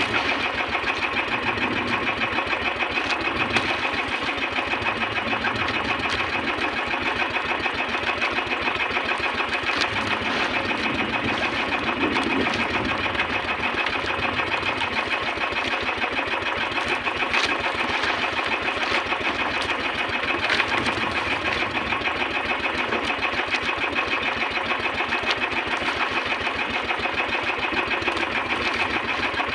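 Engine of a bangka outrigger fishing boat running steadily, a fast even pulsing that does not change in speed.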